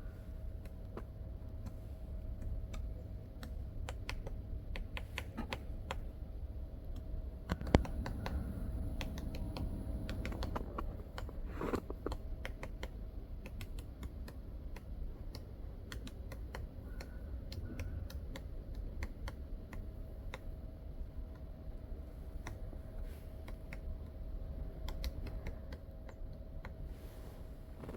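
Woodpecker pecking at a tree trunk, stripping bark: irregular sharp taps scattered throughout, with one louder knock about eight seconds in.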